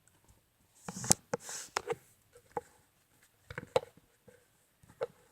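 Plastic toy dinosaur figures being handled: scattered clicks and knocks, the sharpest a little after one second in, with a short hiss just after it.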